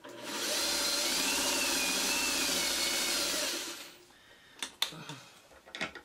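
Electric sewing machine running steadily for about three and a half seconds as it stitches a seam, then stopping. A few sharp clicks follow near the end.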